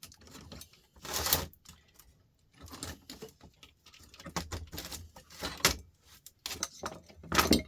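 Small metal scrap parts being handled, giving irregular clicks and light clatter, with louder knocks about a second in and near the end.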